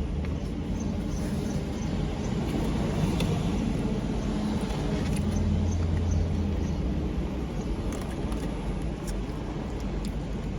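Steady low rumble of a motor vehicle, swelling a little about halfway through.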